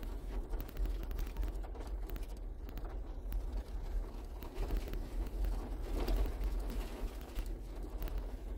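Steady low rumble of a 4x4 rolling slowly over a gravel track, heard from inside the cab, with tyre noise that swells and dips over bumps and small scattered rattles.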